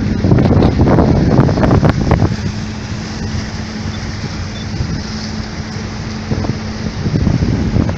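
Motorboat engine running with a steady low hum, heard under gusts of wind buffeting the microphone; the buffeting is strongest in the first two seconds and again near the end.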